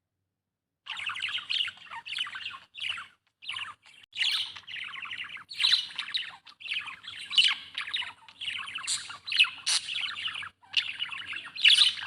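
Budgerigar chirping in rapid, almost unbroken chatter, starting about a second in, with a few short pauses.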